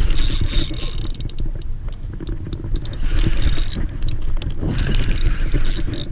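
Wind rumbling on an action camera's microphone while a hooked fish is being reeled in. Hissing, scraping bursts come about every one and a half to two seconds, with scattered small clicks.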